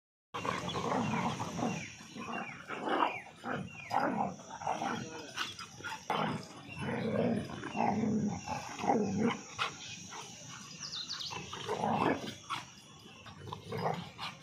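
Two Labradors, one black and one yellow, wrestling and mouthing each other, growling and barking in quick, irregular bursts.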